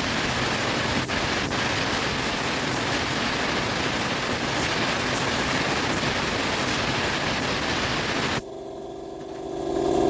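Compressed-air blowgun blowing one long steady blast of air, a loud hiss that cuts off suddenly about eight and a half seconds in. A steady hum fades back in near the end.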